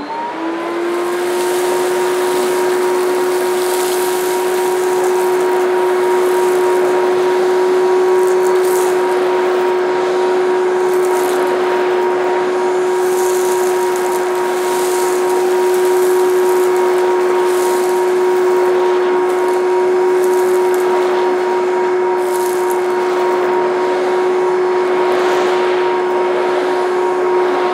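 Hitachi Stowaway cylinder vacuum cleaner motor rising to speed at the start, then running with a steady whine, with crackles of grit and fluff being sucked up through the carpet floor tool. The owner thinks it is already losing suction and suspects a clogged filter.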